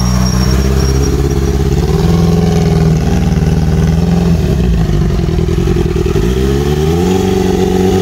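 Inline-four sport motorcycle engine running at close range. It idles, then is raised to a faster held speed about two seconds in, drops back, and rises again with a smooth climb about six seconds in, holding there.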